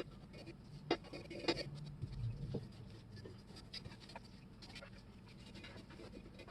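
Faint, scattered scratching and light clicks, a few each second, with no steady running sound.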